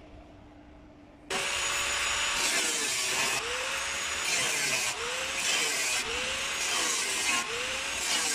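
A handheld electric power tool starts about a second in and runs loudly against the metal of a washing-machine drum, its pitch dipping and recovering about once a second as it works.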